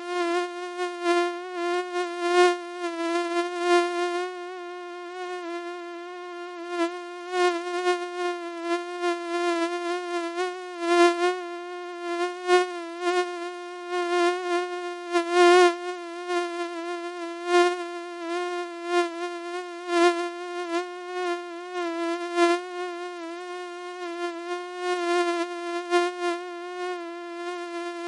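Mosquito wing whine: a steady, thin, high buzz held on one slightly wavering pitch, swelling louder and fading again irregularly as if the insect flies close and away.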